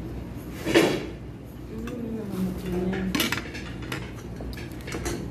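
Cutlery and dishes clinking at a dining table: a loud clatter about a second in, then lighter clicks of utensils against plates.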